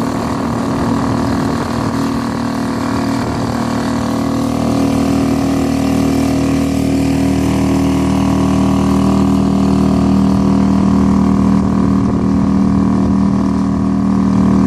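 Suzuki outboard motor running steadily, pushing an inflatable boat along with a constant drone.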